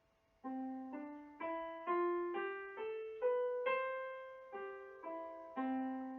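Piano keyboard playing single notes, about two a second. They climb step by step, then come back down to the starting note, which is held. The notes start about half a second in.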